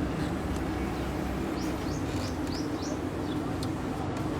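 Toyota Corolla XLi engine running with a steady, even hum. A bird chirps several short rising notes between about one and a half and three seconds in.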